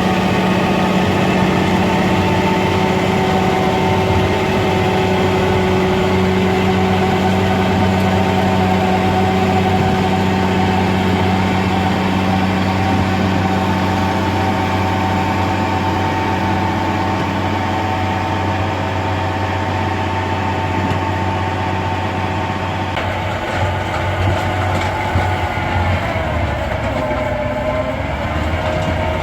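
Heavy tractor running steadily with a PTO-driven, gear-drive rotavator working, a mix of steady engine tones and machine whine. In the last few seconds the pitch dips and rises again.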